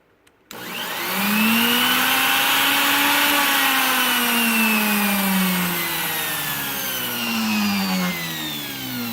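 Mastercraft plunge router's brushed motor starting up about half a second in and running with a loud whine, its pitch climbing for a couple of seconds, then slowly sagging and wavering before it begins to wind down near the end. It runs with the fouled power switch bypassed and one brush partly broken, showing the switch was the main fault.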